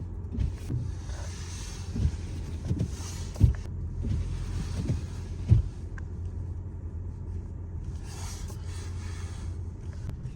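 Car driving on a snowy road, heard from inside the cabin: a steady low road rumble with several dull thumps in the first half. Spells of hissing from the tyres or wipers come and go three times.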